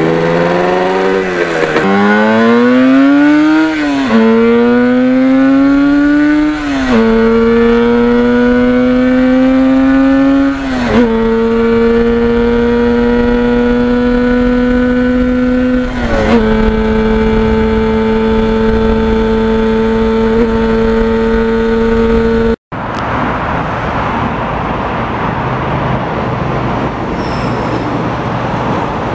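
Yamaha RD400's two-stroke twin accelerating up through the gears, its note climbing and dropping back at each of several upshifts before settling into a steady cruise. About three-quarters through it cuts off abruptly to a steady, even noise.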